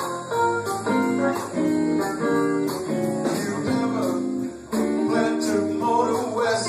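Live music with guitar playing, notes held and changing every half second or so.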